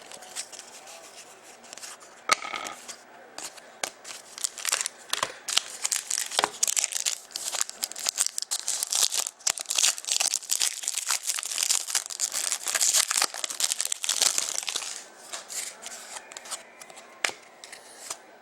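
A trading card pack's wrapper being torn open and crinkled, with many small clicks and rustles as the cards are handled. The crackling is densest through the middle and thins out near the end.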